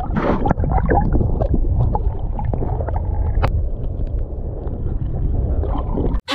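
Surf water churning around a submerged camera, heard underwater. It is a loud, muffled low rumble with bubbling and crackling, and it cuts off sharply near the end.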